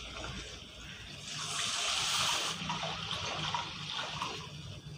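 Tamarind water being poured into a hot pan of tempered spices and sautéed basil leaves: a rush of liquid that swells about a second in, holds for just over a second, then eases to a fainter liquid sound.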